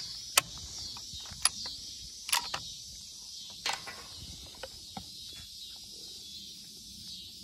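A steady high insect chorus, with a few sharp clicks and knocks in the first four seconds as a phone is handled up against a rifle scope's eyepiece.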